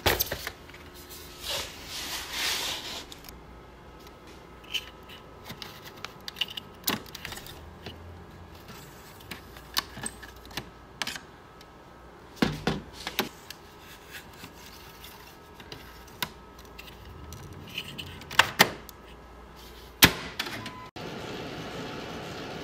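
Hands unpacking a Xerox toner cartridge and fitting it into a multifunction copier: rustling of cardboard and wrapping, then scattered clicks and knocks, with sharper thunks near the middle and towards the end as the cartridge and cover go into place. Near the end a steady machine hum starts as the copier checks the new cyan toner.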